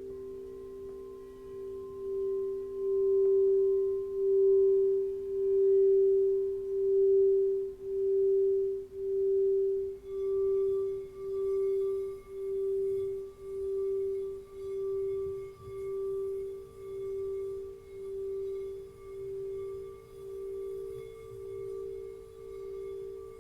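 Crystal singing bowls sounding long, steady tones. The loudest tone pulses with a slow beating about once a second, swells over the first few seconds, then slowly fades. A higher bowl tone joins about ten seconds in.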